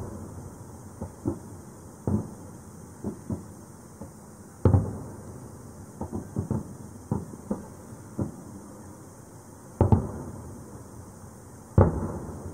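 Aerial firework shells bursting: a series of booms with echoing tails. The three loudest come about five, ten and twelve seconds in, with quieter pops and bangs between.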